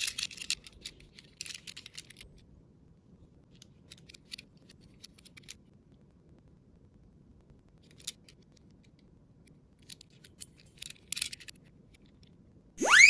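Tomica die-cast toy police car rolling down a slope: scattered clusters of faint small clicks and rattles from its wheels and body on the track. Just before the end a loud rising whistle sound effect cuts in.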